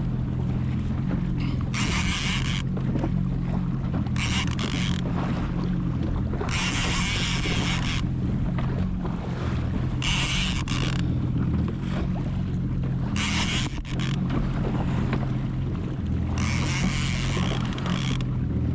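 Jet ski engine idling steadily, with bursts of higher hiss coming and going every few seconds.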